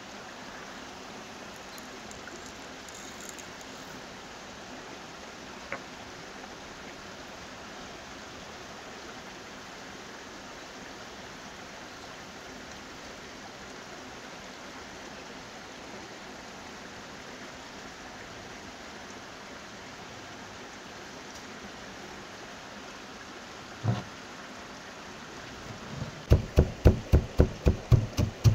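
A stone pestle pounding whole black peppercorns, cumin seeds and ground red pepper in a stone mortar, starting near the end with quick, regular knocks, about four a second. A single knock comes just before. A steady rushing noise lies underneath throughout.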